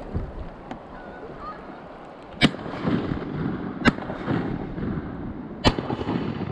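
Three shotgun shots, roughly one and a half to two seconds apart, fired at flying waterfowl, over the steady rush of river water. A few faint bird calls come from the flock in the first second or so.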